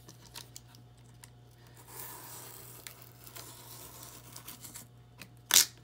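Box cutter blade drawn along the groove of a hardback book's cardboard cover, a soft scratchy cutting of paper and board lasting about three seconds, with light handling clicks before it. A single sharp knock near the end is the loudest sound.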